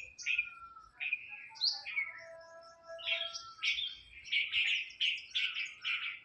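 Birds chirping: a busy chorus of short, high chirps with a few longer whistled notes, growing denser and more continuous from about three seconds in.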